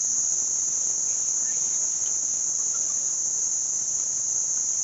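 Insects trilling in one steady, unbroken high-pitched drone.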